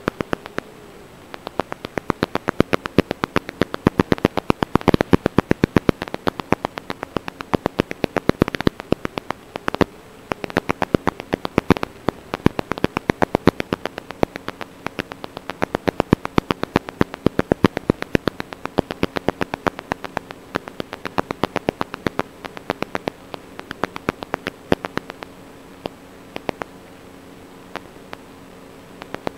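Crackling radio static: dense, irregular clicks over a steady low hum, the sound of an analog FPV video link recorded with interference. The clicks are thickest in the first half and thin out toward the end.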